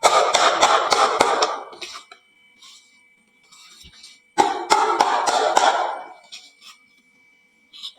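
A batch of marbles rattling and clicking down a wooden marble-run slope, in two bursts about four seconds apart, each dying away over about two seconds.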